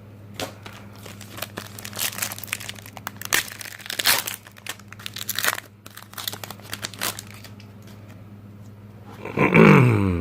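Foil wrapper of a trading-card pack being torn open and crinkled, a run of quick crackling rustles for several seconds. A short voiced sound comes near the end.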